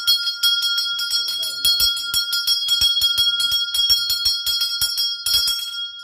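Temple puja hand bell rung rapidly and continuously during the aarti, about six strokes a second over a steady high ring.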